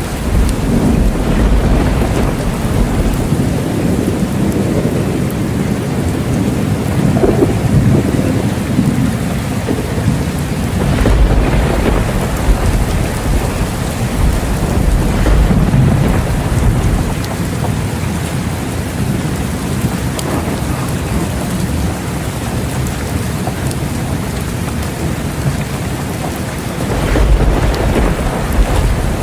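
Steady heavy rain with rolling thunder, the low rumbles swelling and fading several times, most strongly around a third of the way in, around the middle and near the end.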